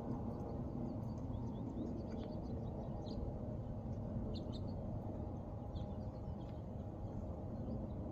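Short, high bird chirps, scattered and irregular, over a steady low background rumble.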